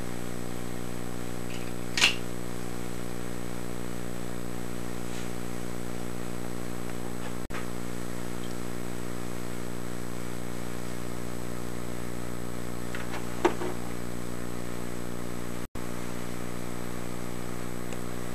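A steady electrical hum on a home-video sound track, holding one level throughout. A short sharp sound comes about two seconds in and another about three-quarters of the way through, and the sound cuts out for an instant twice.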